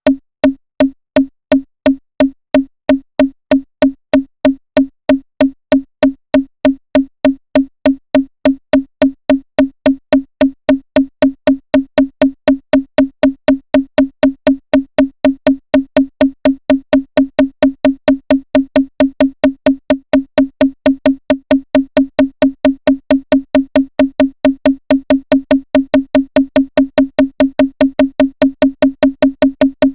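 A single pitched, wood-block-like drum sample triggered over and over from one Maschine MK3 pad by finger drumming, in an even stream of hits that gradually quickens from about two a second to about four.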